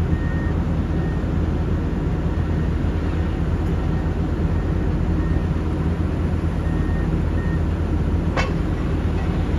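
Heavy diesel engines of a Cat 6020 hydraulic mining shovel and a haul truck running in a steady low drone while the shovel digs into coal. There is a brief sharp click near the end.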